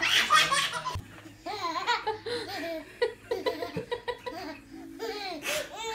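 Baby and toddler laughing in repeated short, high bursts of giggles that rise and fall in pitch.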